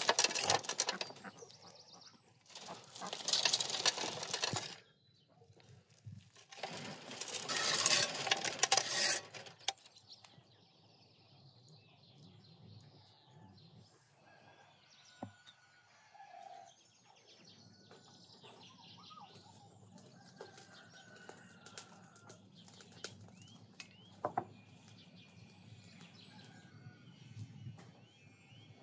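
Loose soil falling onto a heap of earth three times in the first ten seconds, each a gritty rustling patter lasting one to three seconds. After that it is quiet apart from faint birds chirping near the end.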